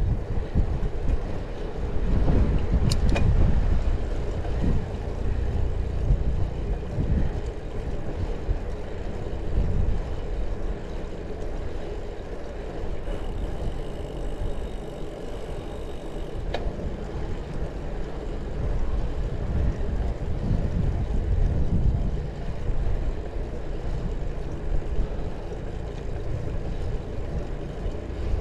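Low, gusting rumble of wind on the microphone while cycling, swelling and fading, with a sharp click about three seconds in.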